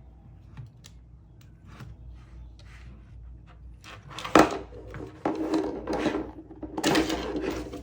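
Handling noises from a jump starter's cables and clamps: a few light clicks, a sharp knock about halfway through, then a stretch of rubbing and scraping.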